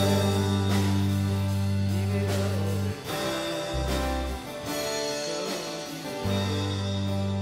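Live worship band playing a slow song: long held bass notes that change every few seconds under keyboard and acoustic guitar, with no lead vocal.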